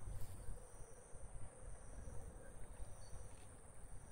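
Faint outdoor ambience: a steady high-pitched insect trill, with low, uneven wind rumble on the microphone.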